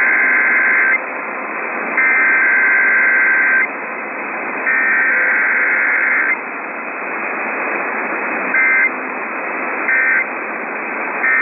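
Emergency Alert System SAME data bursts: a buzzy two-tone digital screech sent three times, a second apart. It is followed by three short end-of-message bursts, with no attention tone between, as in a Required Weekly Test. A steady radio static hiss runs underneath, and the sound is narrow and muffled from AM radio reception.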